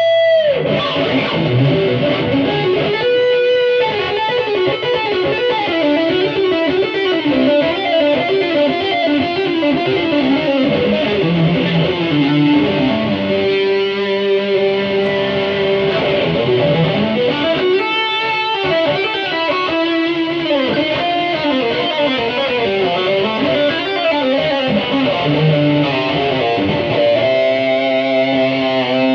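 Electric guitar with DiMarzio Dreamcatcher and Rainmaker pickups, played through a Boss GT-100 processor: flowing single-note runs and chords, with long ringing chords at the start and near the end.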